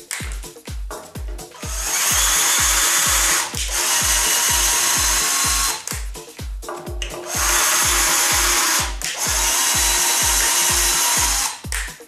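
Electric power tool running in two long steady runs of about four and five seconds, with a short pause between. Background music with a steady beat plays under it.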